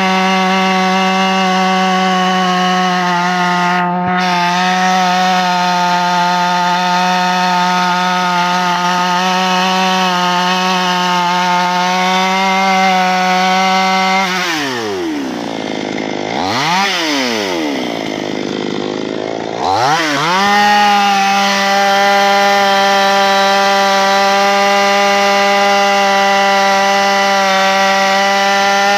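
Two-stroke chainsaw running steadily at high revs. About halfway through, the revs drop sharply for roughly six seconds, with one brief rise in the middle, then climb back to full speed and hold steady.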